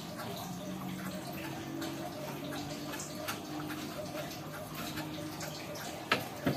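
Water dripping and lightly splashing, with scattered small clicks and a sharper knock about six seconds in.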